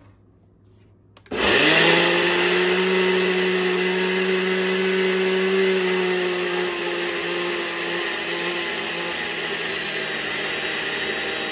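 Ninja blender starting about a second in, spinning up quickly and then running at a steady pitch as it grinds rolled oats into oat flour.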